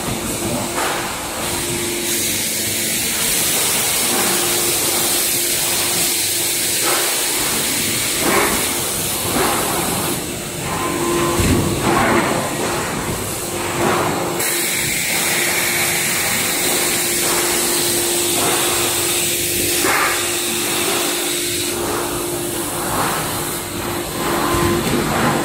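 Hydraulic presses of a stainless-steel tray forming line running: a steady hiss and hum from the hydraulic power units, the hum dropping out now and then, with a few short knocks and clanks.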